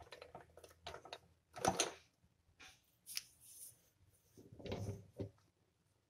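Clicks, knocks and rustling from small fridge magnets being handled, with the sharpest knock about two seconds in.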